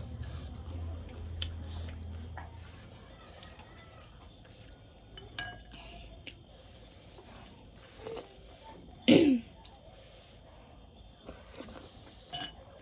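Eating sounds: a utensil clinking against a dish a few times, and a short vocal sound like a cough or throat clearing about nine seconds in, which is the loudest moment.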